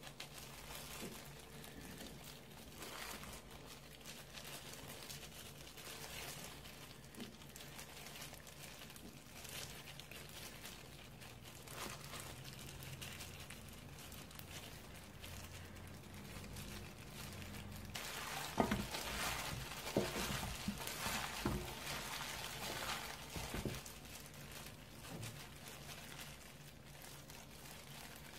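Disposable plastic gloves crinkling and wet kimchi seasoning squishing as hands stuff it into slit cucumbers in a stainless steel bowl. It gets busier and louder past the middle, with a few soft knocks.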